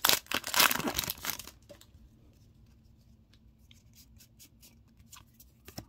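A trading-card booster pack's foil wrapper is torn open and crinkled for about a second and a half. Then come faint ticks of the cards being slid and flipped in the hand.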